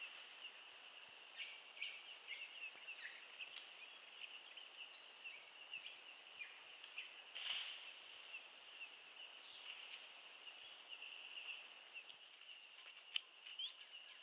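Faint forest ambience: a steady high-pitched drone with scattered short bird calls. A louder call comes about seven and a half seconds in, and high gliding whistles near the end.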